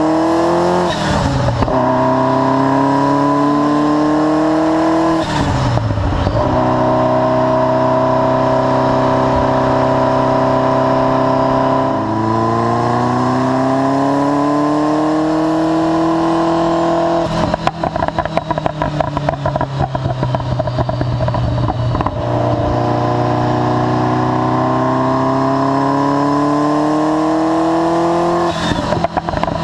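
Ferrari F40's twin-turbo V8 through a Tubi Style exhaust, pulling up through the gears with rising pitch and brief breaks at each upshift, holding steady revs for a spell. About two-thirds of the way in the throttle is lifted and the exhaust crackles rapidly for several seconds before the engine pulls hard again, then crackles once more near the end.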